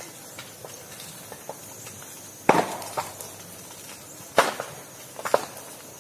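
A burning clump of live bamboo, its stalks bursting with sharp bangs: two loud ones about two and a half and four and a half seconds in, with smaller pops between and near the end. Steam and air trapped in the sealed hollow sections of the heated stalks split them open.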